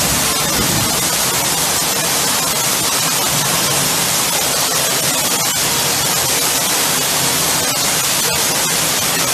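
Torrential rain driven by strong wind, a loud steady hiss with a few faint ticks.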